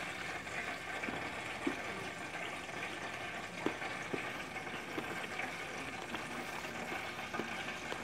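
Steady hiss with a few faint, short crunches and clicks as crispy fried chicken is torn apart and eaten.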